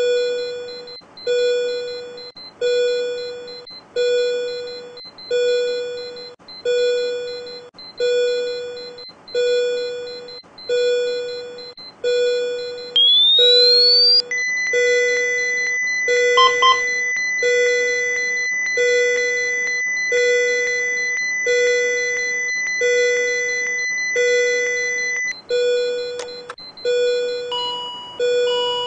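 Simulated patient monitor/defibrillator app sounding a repeating alarm beep, a little more than one beep a second. About 13 seconds in, a rising defibrillator charging whine runs into a steady high charged tone that holds for about eleven seconds and then stops. Near the end the beeps take on an added higher note.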